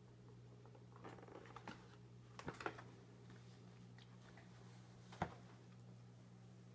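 A few light taps and knocks of small hands on a clear plastic tub, the loudest about two and a half and five seconds in, over a quiet room's steady low hum.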